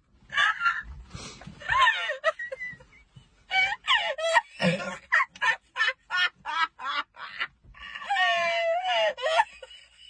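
A high-pitched voice laughing and squealing: a quick run of about ten short bursts, then one long, wavering shriek near the end.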